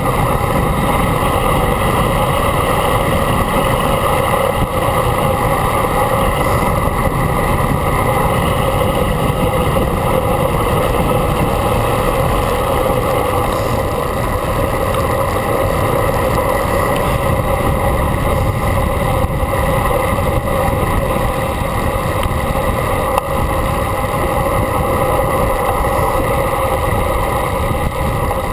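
Steady rushing wind and road noise of travel at speed, with a few faint steady hums under it.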